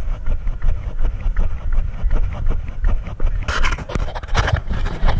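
A runner's footfalls on a dirt path and heavy panting breath, picked up by a body-worn camera, with low wind rumble on the microphone. A louder rush of noise comes in about three and a half seconds in.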